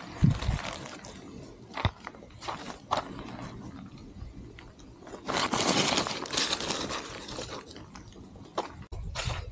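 Footsteps scuffing on a gritty dirt path and crumpled paper litter rustling in a hand, with a louder stretch of rustling a little past halfway as it is dropped into a perforated metal trash bin.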